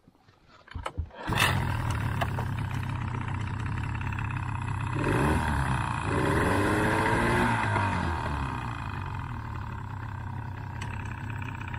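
Outboard motor starting about a second in after a few clicks, then running steadily, revved up and back down partway through before settling again. It runs now that its blocked carburettor main jet has been cleared.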